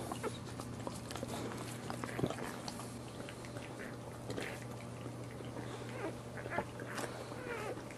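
Newborn puppies squeaking and whimpering in many short, high cries, over a steady low hum.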